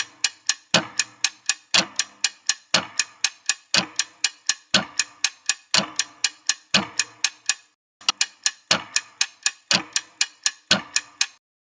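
Ticking clock sound effect used as a quiz countdown timer: sharp ticks about four a second, with a heavier tick once each second. It breaks off briefly about eight seconds in, then resumes.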